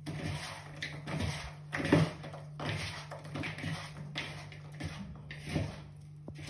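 Hands tossing and rubbing seasoned raw potato slices in a bowl: irregular wet squishing and slapping, loudest about two seconds in, over a low steady hum.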